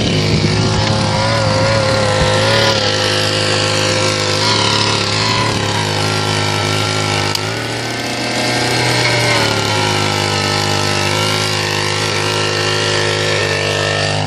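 A small petrol engine running steadily at a fairly constant speed, its pitch wavering slightly and its level dipping briefly about eight seconds in.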